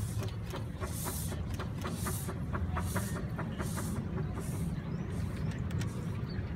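Small narrow-gauge steam locomotive working a train, its exhaust chuffing about once a second, with a quick run of clicks in between. The chuffs stop about four and a half seconds in.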